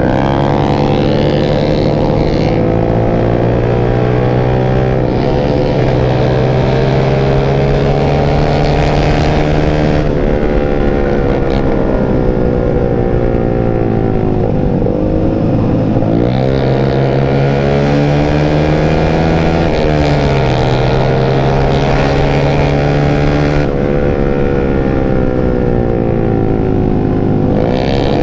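Yamaha Jupiter MX 135's stock single-cylinder four-stroke engine under hard acceleration, heard from the rider's seat: the revs climb and break several times as it shifts up through the gears. Midway the revs fall for a couple of seconds and then climb again through more shifts, with another drop near the end.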